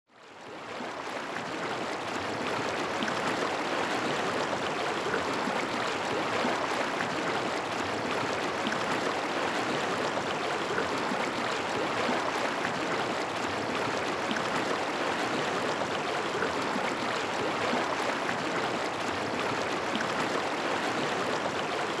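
Steady rush of a mountain stream's water, fading in over the first couple of seconds and then holding level.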